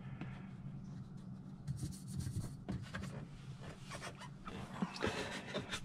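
Faint rubbing and small clicks of hands handling plastic and metal mirror-mount parts, with a few sharper ticks, over a low steady hum.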